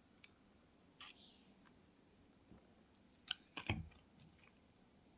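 A few scattered small clicks, the loudest a soft knock with a low thud about three and a half seconds in, over a faint steady high-pitched whine.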